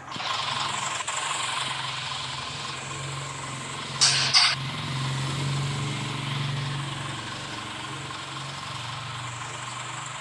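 A steady machine hum with a hiss over it, broken about four seconds in by two short, sharp bursts of hissing air in quick succession.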